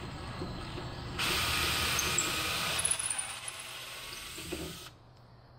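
Ryobi cordless drill running for about four seconds as its bit is fed gently down through a hinge hole into the wooden tail frame. It starts about a second in and cuts off sharply near the end.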